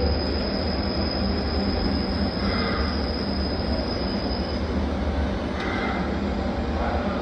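Lathe running steadily, spinning a turned faceplate while its runout is checked, with a low hum and a thin high whine that stops about four and a half seconds in.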